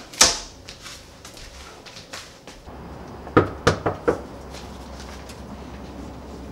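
A door shuts with a sharp bang just after the start. About three seconds later, knuckles rap quickly on a door about four times, over a low steady hum.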